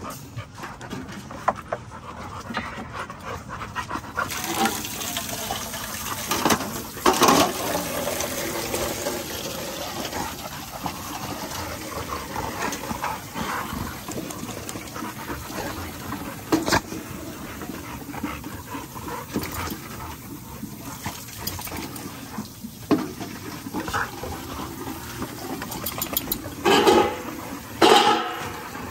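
XL bully dogs lapping water from a metal pail and panting. A few short louder sounds break in, two of them close together near the end.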